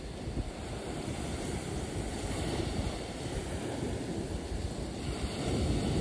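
Wind buffeting the microphone: a low, rumbling noise that swells and dips unevenly, growing a little louder near the end.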